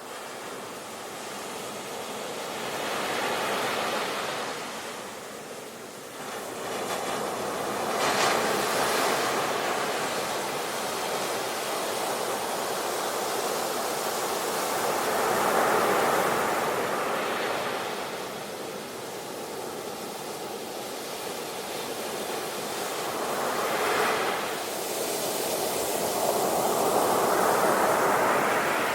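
Sea waves breaking and washing on a shore, each surge swelling and then ebbing away, about every eight seconds.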